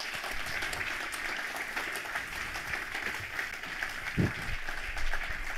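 Audience applauding, many hands clapping steadily, with a brief low voice about four seconds in.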